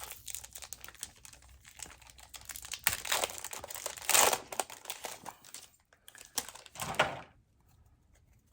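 Foil wrapper of a Pokémon booster pack crinkling and tearing as it is opened, in irregular rustling bursts, loudest about four seconds in.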